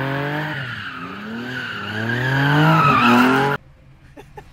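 Sports car engine revving up and down while its tyres squeal through a drift. The sound cuts off suddenly about three and a half seconds in, leaving a few faint clicks.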